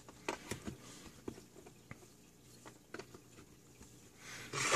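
Scattered light clicks and taps of test leads and banana plugs being handled and plugged into a multimeter, with a short louder rustling hiss near the end.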